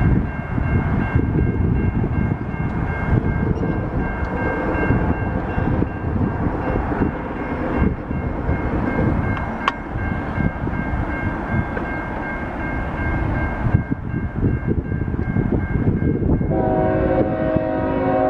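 GE ES44DC diesel locomotive approaching at the head of a freight train, its engine and the cars giving a steady heavy rumble with a thin high-pitched ringing tone over it. Near the end the locomotive sounds its horn, a chord of several notes held on.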